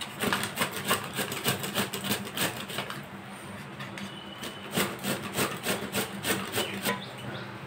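Peeled bottle gourd being grated by hand on a plastic grater: a quick run of scraping strokes, several a second, that thins out briefly near the middle and then picks up again.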